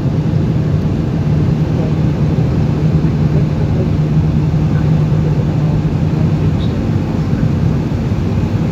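Steady cabin noise of an Airbus A320-214 in flight, heard inside the cabin over the wing: the CFM56 jet engines and the airflow make a constant rushing noise with a low, even drone.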